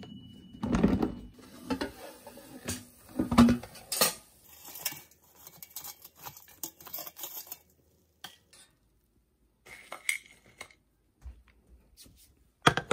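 Svensen air fryer basket being handled and metal tongs clinking and scraping against the perforated basket and a plate as fried cutlets are lifted out: a few heavier knocks in the first four seconds, then lighter scattered clicks.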